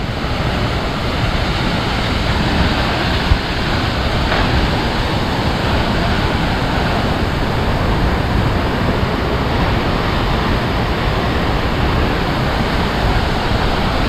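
Steady rushing of Gitgit waterfall's strong flow of water, an even noise with no pitch.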